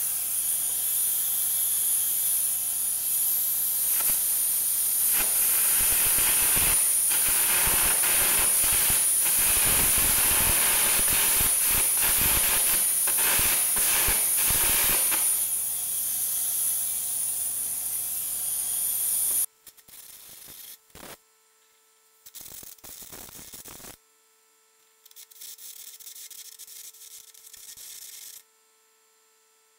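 Arc-air gouging torch burning out the old welds between a tractor wheel centre and its rim: a loud, high compressed-air hiss laced with the crackle of the carbon arc. It cuts off abruptly about two-thirds through, followed by three shorter, quieter spells of hissing.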